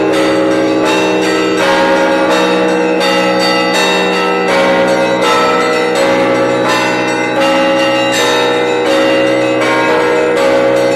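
Russian Orthodox church bells rung by hand from one belfry, ringing for the All-Night Vigil. Smaller bells chime in a quick repeating pattern, struck about twice a second, over the long-sounding hum of a larger bell.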